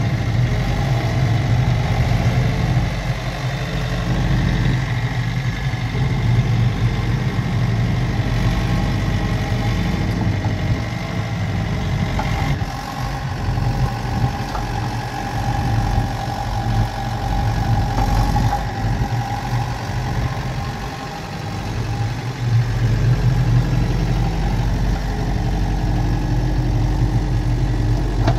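John Deere 1600 Turbo wide-area mower's diesel engine running steadily while the mower is driven around. The engine note dips briefly about three-quarters of the way through, then picks up again.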